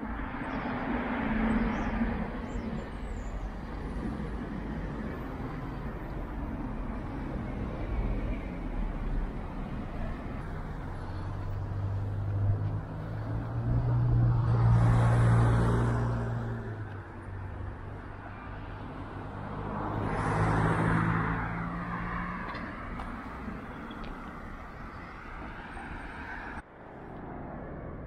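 Street traffic: cars passing one after another over steady road noise. The loudest passes about halfway, with its engine hum clearly heard. The sound drops abruptly to a quieter background near the end.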